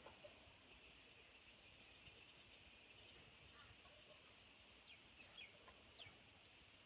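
Faint natural outdoor ambience. A very high-pitched buzzing swells and fades about once a second through the first few seconds, and a few brief bird chirps come after the middle.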